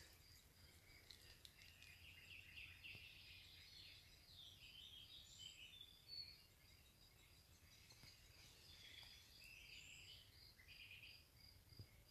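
Faint woodland ambience: a thin, steady high purring trill from an unidentified animal or bird, with scattered bird chirps and short song phrases over it.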